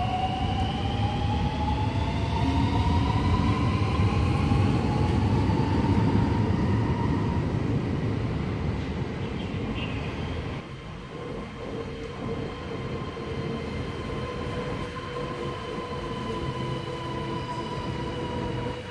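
Alstom Metropolis metro train: its electric traction motors whine and rise steadily in pitch as it accelerates along the platform, over a heavy wheel-and-rail rumble. After a cut about ten seconds in, a train's motor whine holds and slowly falls in pitch over a lighter rumble.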